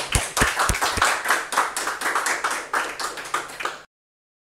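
Audience applauding, a few loud single claps standing out at first; it cuts off suddenly near the end.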